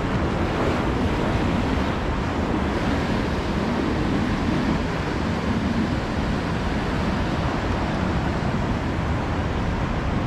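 Surf breaking and washing up on a sandy shore, a steady rush, with wind buffeting the microphone.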